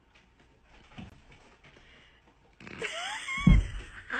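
Mostly quiet, then short rising cries and a heavy thump about three and a half seconds in.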